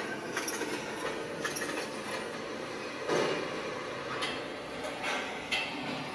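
Mechanical clatter from a museum exhibit's sound track: a steady rumbling noise with sharp knocks about once a second, heard through the exhibit's speakers.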